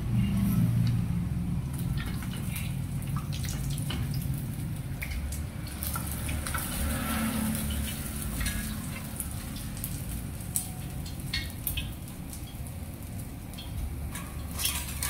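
Pork leg deep-frying in hot oil in a stainless steel pot, the oil crackling and sputtering steadily as it foams up around the skin. A few sharper clicks near the end.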